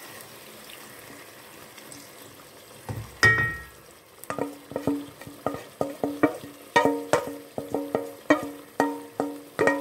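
A metal bowl knocked repeatedly with a wooden spoon to get the last of the seasoning out, each knock leaving a short ring: one loud knock about three seconds in, then a run of two or three knocks a second. Before the knocks, the pot of chicken sizzles faintly.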